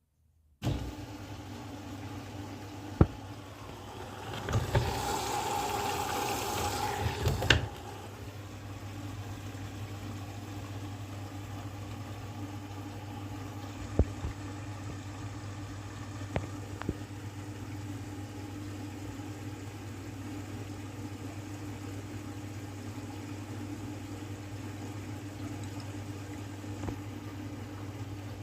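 Candy washing machine starting up and running with a steady motor hum. A louder rushing noise lasts about three seconds a few seconds in, and a few sharp clicks sound over the hum.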